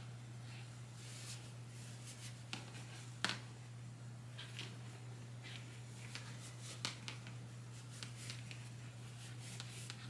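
Hands handling and pulling the gathered microfiber fabric of a hair towel along its elastic casing: soft rustling with scattered small clicks, the sharpest about three seconds in, over a steady low hum.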